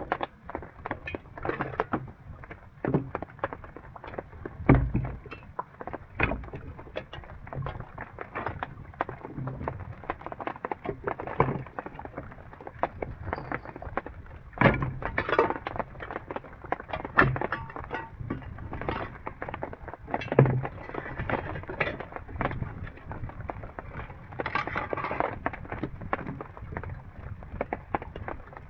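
Irregular knocking and cracking, several sharp hits a second, with a handful of louder knocks spread through.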